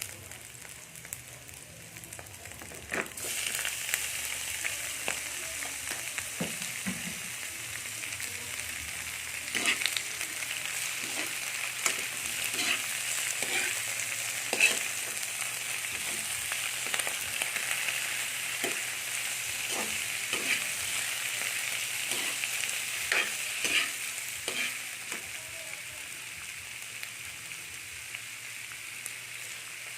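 Food frying in a hot pan, sizzling, with a utensil stirring and scraping it in short clicks. The sizzle jumps up sharply about three seconds in and eases a little near the end.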